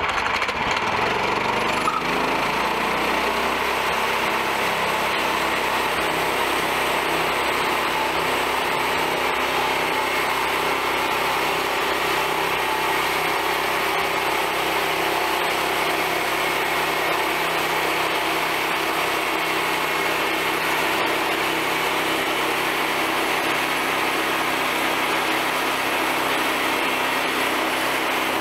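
Small gasoline engine of a manual band sawmill running steadily under load while the band blade saws lengthwise through a log.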